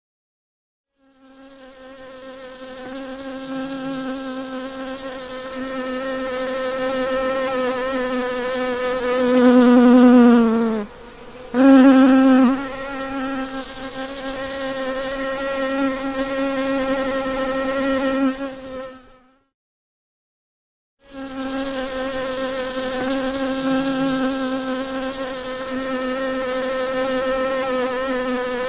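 A bee buzzing in flight: a steady, pitched hum that fades in about a second in. It swells and dips in pitch briefly around the middle, breaks off for about two seconds later on, then resumes.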